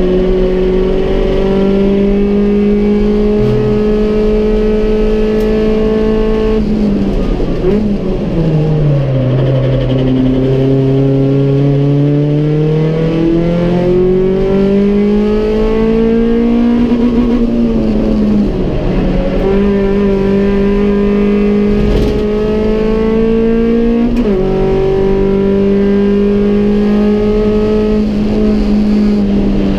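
MG Metro Cup race car's four-cylinder engine at racing revs, heard from inside the cabin. It holds a steady high note, drops sharply about seven seconds in as the driver lifts and changes down, then climbs steadily for several seconds under acceleration. It dips briefly twice more, about two-thirds and four-fifths of the way through, before settling back to a steady note.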